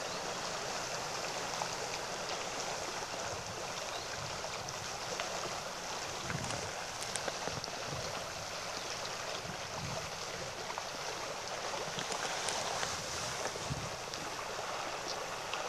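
Steady rush of a shallow freestone mountain stream running over rocks.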